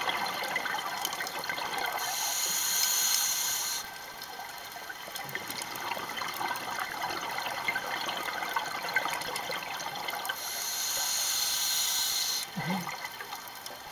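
Scuba diver's breathing heard underwater: two long hissing bursts of exhaled bubbles from the regulator, about eight seconds apart. Beneath them runs a steady crackle of faint clicks.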